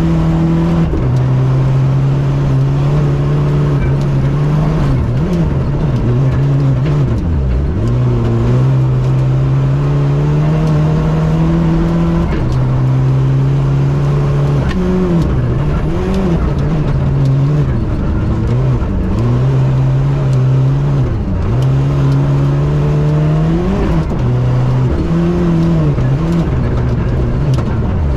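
Rally car engine heard from inside the cockpit at full stage pace: a loud engine note that holds high, then drops sharply and climbs back up several times as the driver lifts off and shifts gears through the corners.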